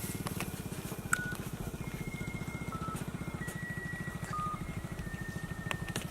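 A small engine running steadily with a rapid, even low pulse, with short high chirps and a few clicks over it.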